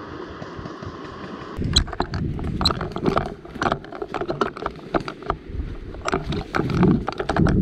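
Footsteps and rustling of a player moving on foot: irregular clicks and knocks over a low rumble, starting about a second and a half in after a steady hiss.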